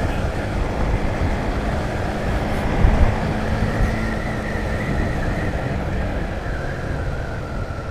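Motorcycle, likely a Honda CBR150R, running steadily at cruising speed on the road, with wind and road rush over the engine.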